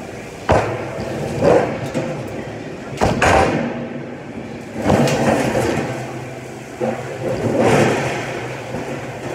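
Large thin sheet of metal being waved and flexed by hand, giving about half a dozen wobbling rumbles and rattles, over a steady shop hum.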